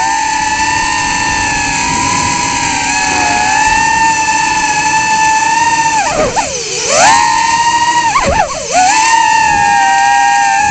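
Tinyhawk 2 micro FPV drone's brushless motors and propellers whining at a steady high pitch, picked up by the camera on board. About six seconds in the pitch drops sharply and climbs back, and it dips again briefly a little over eight seconds in, as the throttle is cut and brought back.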